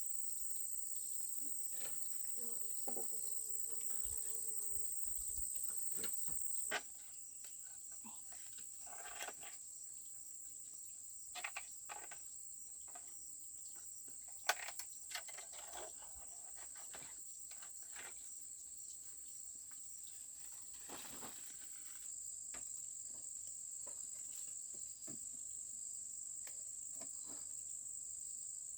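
A steady, high, shrill chorus of insects, crickets or cicadas, runs throughout. It drops in level about seven seconds in and rises again later. Scattered sharp clicks and brief rustles come over it.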